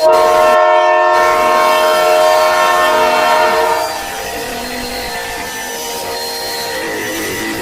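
A horn blast sounding a chord of several steady notes, starting abruptly and held for about four seconds, then dropping to a quieter, rougher background sound.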